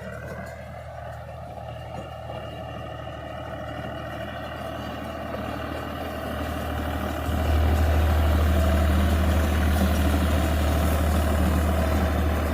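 Tractor engine running steadily as it works a baler in the field, a low drone that slowly grows louder and then jumps up in level about seven and a half seconds in.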